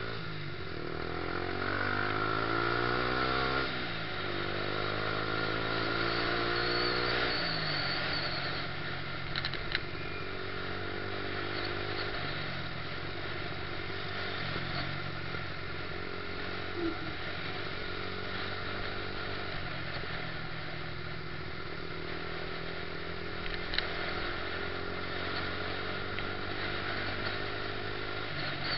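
Yamaha YZF-R125's 125 cc single-cylinder four-stroke engine, heard from on the bike, pulling hard twice in the first eight seconds, its pitch rising each time and then dropping sharply at an upshift. After that it runs at lower, steadier revs with small rises and falls.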